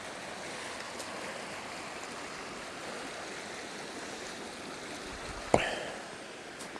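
Steady rush of a flowing trout stream, with a single sharp knock about five and a half seconds in.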